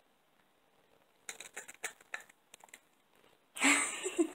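A cat crunching a pork rind: quick, sharp, crackly bites starting about a second in. A louder, noisy burst follows near the end.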